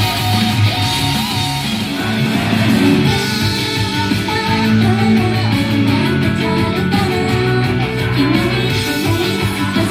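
Idol pop-rock song: guitars and a steady drum beat with singing.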